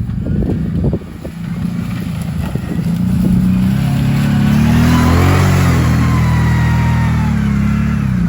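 A car driving past: its engine and tyres grow louder, peak about five seconds in, then the engine note drops in pitch as it moves away.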